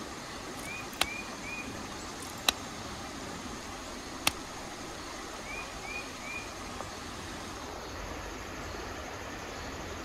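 Three sharp, clicking strikes of stone on quartzite being knapped: the first about a second in, the others one and a half to two seconds apart. A bird gives two short runs of three chirps in between, over a steady background hiss.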